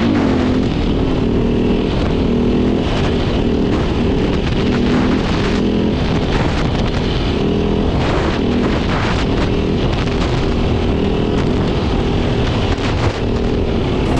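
Beta RR 450 enduro dirt bike's single-cylinder four-stroke engine running under way, its pitch rising and falling repeatedly as the throttle is opened and closed, with wind noise on the microphone.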